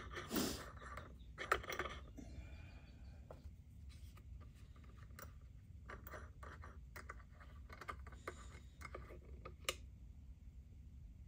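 Light clicks, taps and scrapes of hands working a small metal clamp and a wooden wedge against a semi-hollow guitar body while a glued crack is clamped, with a louder scrape about half a second in and a sharp click near the end. A steady low hum runs underneath.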